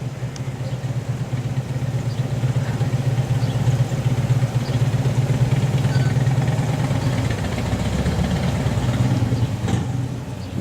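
A vehicle engine idling with a steady low hum, swelling slightly deeper about eight seconds in.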